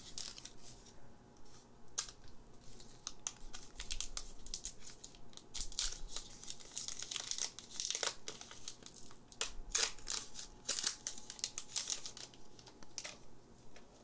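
Foil wrapper of a Pokémon TCG Lost Thunder booster pack crinkling and tearing as it is opened by hand, a dense run of sharp crackles that thins out near the end.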